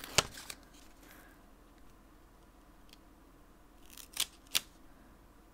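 A few sharp clicks of tweezers picking a sticker off its sheet and setting it on the paper page: one near the start, then two or three close together about four seconds in, with quiet between.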